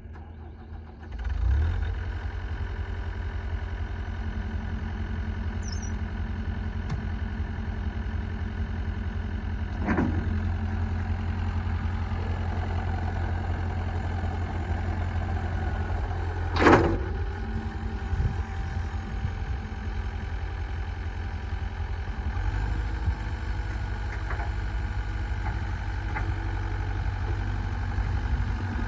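Diesel engine of a John Deere 323D compact tracked loader running steadily. It comes in abruptly about a second in. There are two brief sharper sounds, about ten and about seventeen seconds in; the second is the loudest.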